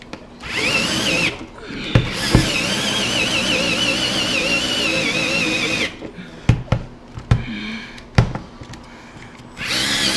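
Power drill turning a 1-inch hole saw into a thick desk in bursts, its motor whine wavering as the saw bogs and bottoms out under load. The drill stops about six seconds in, a few sharp knocks follow, and the drill starts again near the end.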